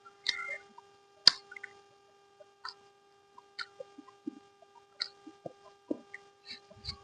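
Close-up eating sounds: wet chewing and lip smacks with scattered sharp clicks, the loudest about a second in.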